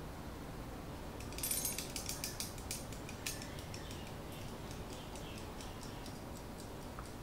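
Mechanical kitchen timer being twisted to 15 minutes. A quick run of ratcheting clicks comes about a second and a half in, then slower clicks, then faint, even ticking as the timer counts down.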